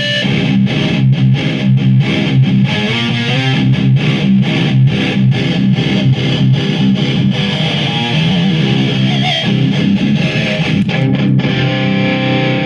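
Distorted electric guitar playing a heavy metal riff with quick picked, palm-muted chugs. It is a Schecter with an EMG bridge pickup, played through a Marshall JCM 2000 amplifier driven by a Maxon OD-9 overdrive pedal.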